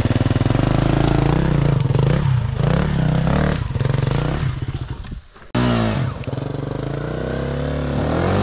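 Dirt bike engine running and revving up and down in pitch. The sound dips away briefly about five seconds in and comes back suddenly.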